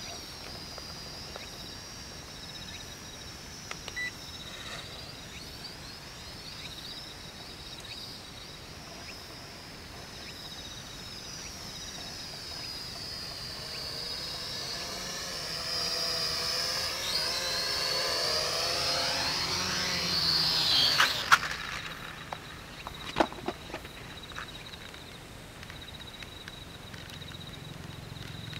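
High whine of an X400 toy quadcopter's motors and propellers in flight, faint at first and growing louder as it comes closer, its pitch wavering. About three-quarters of the way through it cuts off suddenly with a couple of sharp knocks as it comes down, followed by a few more clicks.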